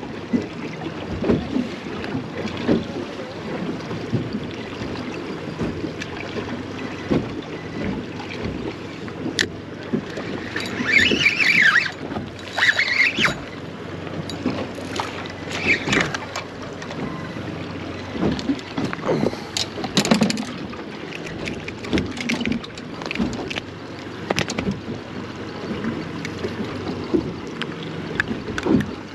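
Wind buffeting the microphone and choppy water slapping against a small fibreglass boat's hull, with scattered knocks of handling on the deck and a few brief squeaks near the middle.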